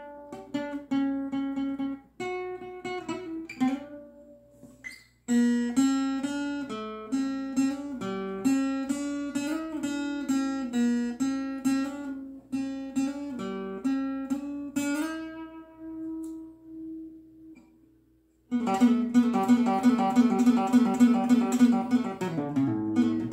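Acoustic guitar played fingerstyle: picked single notes and chords, one phrase after another, stopping briefly a few times.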